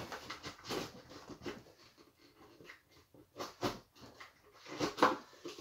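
Fingers scratching and picking at the tape and flap of a cardboard box: a string of short, irregular scratches and taps, a little louder about three and a half seconds in and again near the end.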